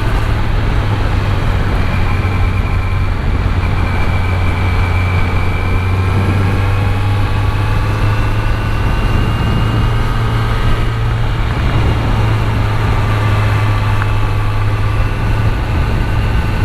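Kawasaki Z900 motorcycle's inline-four engine running at a steady cruise under the rider, its note drifting slightly up and down, over continuous road and wind noise.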